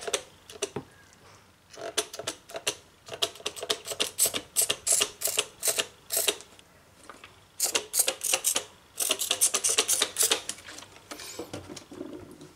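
Trigger spray bottle of glass cleaner pumped in quick runs, each pull giving a short click and hissing squirt, about four a second, in several bursts with short pauses between.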